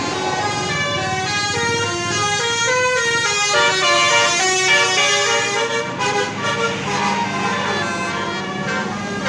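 Indonesian 'telolet' bus horn: a multi-tone horn playing a quick tune of short notes that step up and down in pitch. A low steady tone joins underneath for the last couple of seconds.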